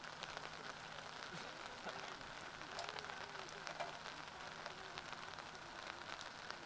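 Light rain pattering close to the microphone: a steady hiss with scattered small ticks. Faint distant voices call out from the soccer field.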